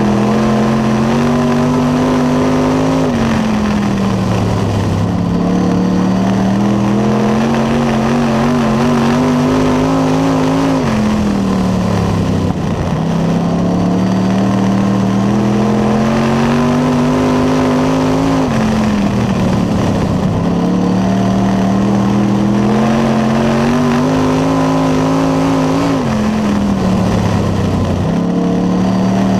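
Dirt late model race car's V8 engine at racing speed, heard from inside the cockpit. The engine note climbs steadily along each straight, then drops off as the driver lifts for the turn, three times over.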